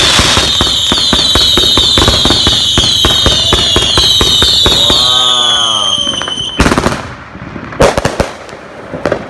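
Consumer fireworks cake firing: a high, slowly falling whistle over dense crackling pops for about six and a half seconds. It ends in a loud bang, and a couple more loud bangs follow about a second later.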